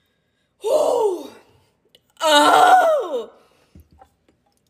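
A woman's two wordless groans of disgust, each sliding down in pitch at the end: her reaction to the taste of sea moss gel.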